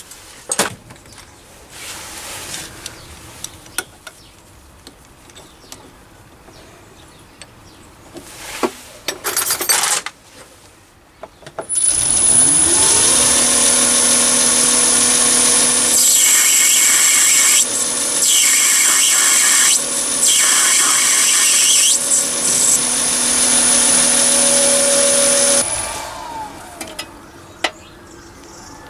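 Chinese mini lathe: a few faint clicks and knocks, then its motor starts with a rising whine and runs steadily at speed, with a high whine over it, as it turns a brass piston rod. Near the end it is switched off and winds down.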